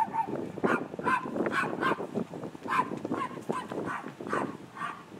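A small poodle barking repeatedly: about a dozen short barks at uneven intervals.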